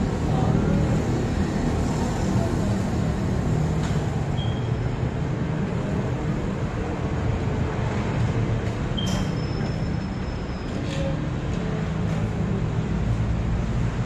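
Steady rumble of motor traffic and tire-shop noise, with a few short high clinks and sharp hisses along the way.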